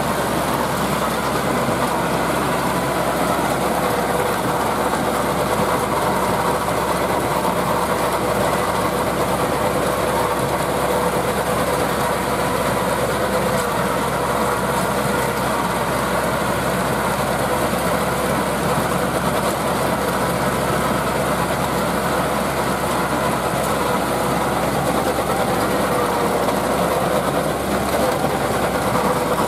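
Landini 8860 tractor's four-cylinder Perkins diesel running steadily under load, with its rear rotary tiller churning through dry stubble soil.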